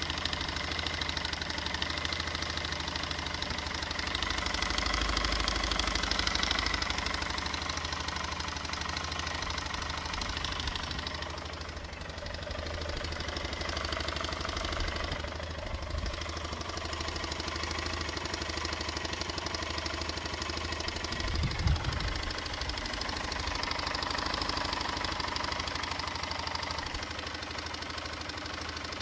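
Car engine running with a rattling and ticking noise from inside the engine, the complaint being investigated. It gets louder for a few seconds twice, and there is a short low thump about two-thirds of the way through.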